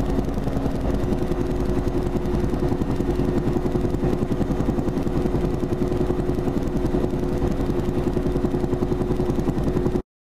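Helicopter engine and rotor noise heard from inside the cabin: a steady hum with a fast, even rotor beat. It cuts off abruptly near the end.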